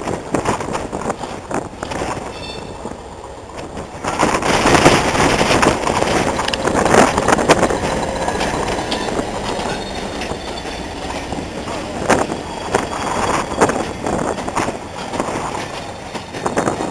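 Hastings diesel-electric multiple unit 1001 ('Thumper'), with its English Electric diesel engine, approaching and then passing close by. The sound jumps suddenly louder about four seconds in as the train draws level, then goes on as a steady rumble with repeated wheel clicks while the coaches run past.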